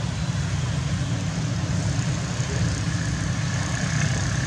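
Steady low rumble of an engine running at idle.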